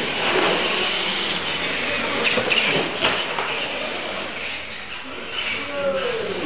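Two radio-controlled scale monster trucks launching off the line and racing across a concrete floor: motors and tyres running loud, starting suddenly at the launch. A few sharp knocks come in the middle, and a falling whine near the end as a truck slows.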